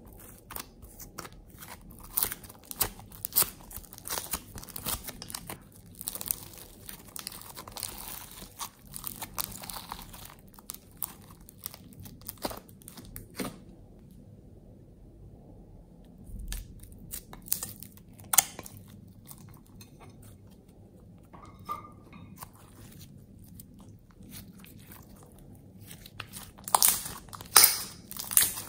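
Hands squishing and pressing glossy slime, making sticky clicking and crackling sounds in dense runs. The clicks stop for about three seconds in the middle, come back sparsely, and are loudest near the end.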